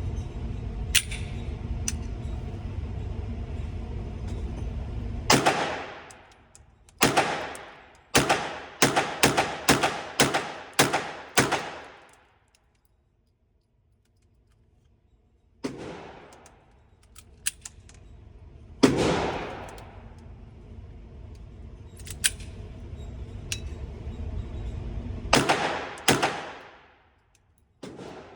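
Suppressed firearm being fired: a quick string of about nine shots, then several single shots spaced a few seconds apart, each a sharp crack with a short ringing tail. A low steady rumble runs underneath before and between the shots.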